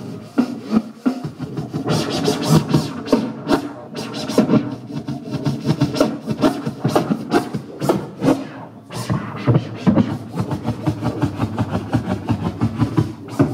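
DJ scratching a vinyl record on a turntable over a hip-hop beat, in rapid, choppy strokes.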